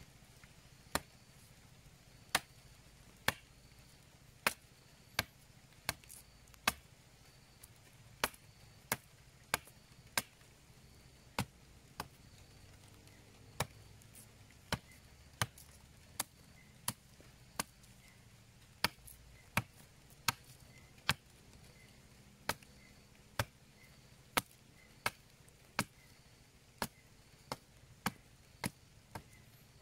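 A large knife blade chopping into an upright wooden stick, with about 34 sharp strikes coming at a steady pace, mostly 0.6 to 1 s apart, and wood chips splitting off.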